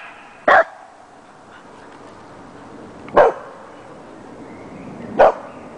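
Dandie Dinmont terriers barking: three short single barks, spaced two to three seconds apart.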